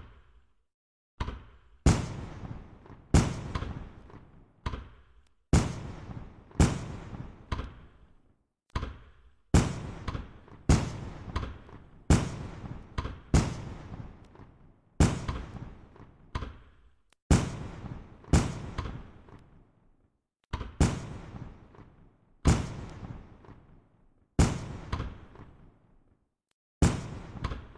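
Aerial fireworks bursting, a sharp bang about once a second and often two in quick succession, each dying away over about a second before the next.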